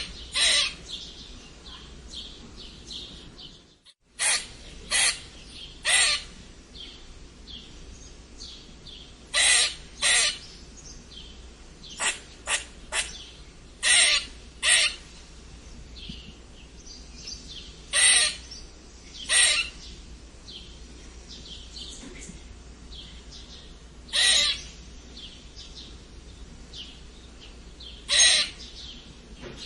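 Squirrel squeaking: short, sharp, loud calls, often in pairs, at irregular intervals. Faint high chirping runs underneath, and the sound briefly drops out about four seconds in.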